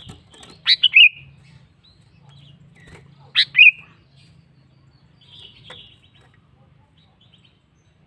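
Sooty-headed bulbul (kutilang) calling: two loud, short two-note phrases about three seconds apart, then softer chirps.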